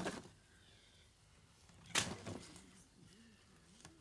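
Paper wrapping being torn off a box in two short rips, one at the start and a louder one about two seconds in.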